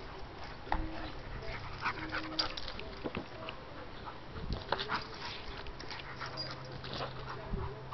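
Basset Hound–Pit Bull mix dog chasing and snapping at soap bubbles, with small whimpers and scattered short clicks and snaps.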